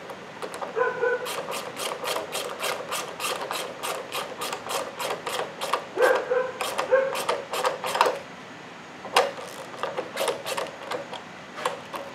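Hand ratchet clicking rapidly, about four clicks a second, as the plastic engine cover's fasteners are run down on a Honda CR-V's 2.4-litre engine, slowing to scattered clicks in the second half. Several short high-pitched squeals sound between the clicks.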